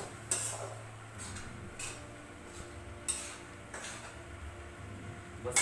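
Long metal spatula scraping and clinking against a steel kadhai while stirring pasta: about six sharp scrapes, roughly a second apart.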